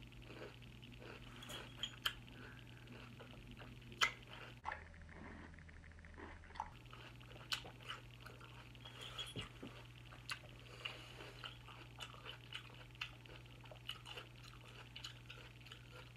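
A person chewing watermelon with the mouth close to the microphone: faint, scattered wet smacks and clicks over a low steady hum.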